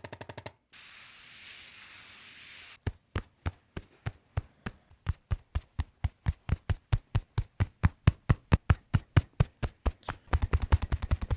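A rapid, even series of sharp percussive taps, about four to five a second, growing louder. Near the end they speed up into a faster, heavier run. The taps come after a couple of seconds of soft hiss.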